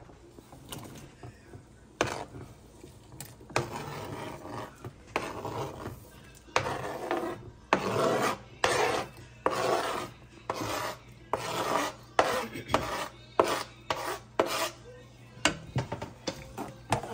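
A metal spoon scraping vegetable trimmings off a plastic cutting board into a pan, in many short repeated rasping strokes with sharp taps of metal against the board and the pan.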